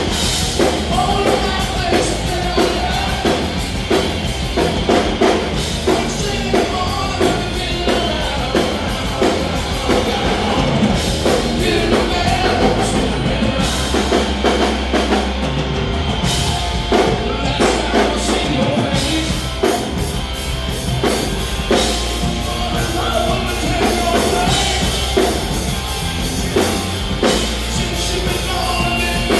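Live rock band playing with a lead singer over a steady rock drum beat.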